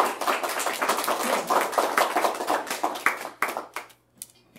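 Audience applauding, many hands clapping at once, thinning out and stopping near the end.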